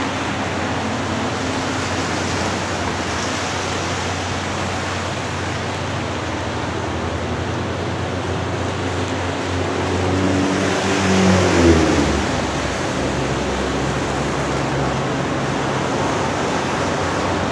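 Steady rushing noise over a low engine drone from an approaching commuter train's GP40MC diesel locomotive. About eleven seconds in, a pitched sound swells and bends in pitch, briefly the loudest thing, then fades back into the steady noise.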